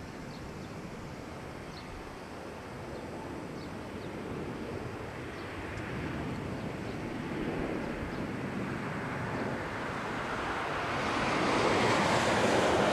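Airbus A320-214 airliner with CFM56 jet engines landing: a steady jet roar that grows louder through touchdown and the rollout, loudest near the end.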